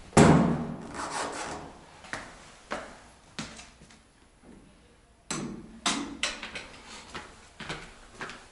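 A loud bump just after the start as a door is pushed open, then footsteps and scattered knocks on a hard floor, with several sharp knocks again after a brief lull in the middle.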